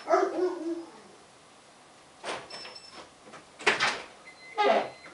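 A few short knocks, about two seconds in and again near four seconds, between brief murmured voice sounds; the car's engine is not yet running.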